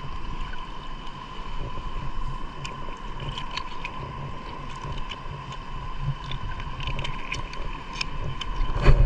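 Shallow seawater sloshing over a reef flat, with scattered small splashes and clicks as swim fins are pulled on by hand in the water. There is a louder rustle and splash right at the end.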